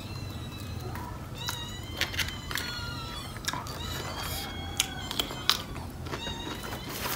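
Chewing with sharp clicks from eating crab papaya salad, under many short, high-pitched animal calls scattered throughout.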